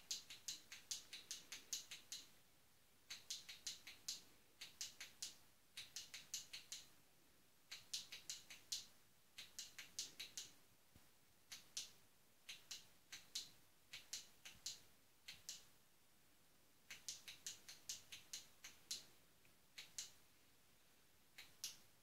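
Torch (flashlight) switch clicking on and off in quick runs of faint clicks with short pauses between them, as the torch is flashed to send a Morse code message.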